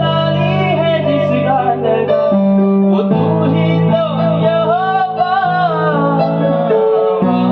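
A Hindi Christian worship song: a voice singing a melody over instrumental accompaniment, with held chords underneath that change a few times.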